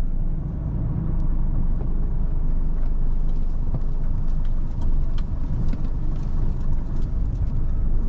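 Truck engine running with a steady low rumble, with a few faint ticks over it.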